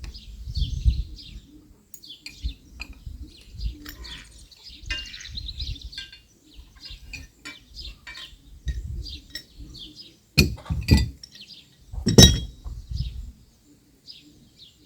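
Metal clinking and knocking as half-inch black iron pipe fittings are turned and tightened, with a few sharp clanks in the last third. Birds chirp throughout.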